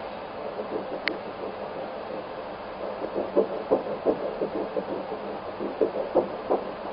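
Ultrasound machine's Doppler audio of an 8-week embryo's heartbeat: rapid whooshing pulses at about three beats a second over a steady hiss, growing stronger about three seconds in.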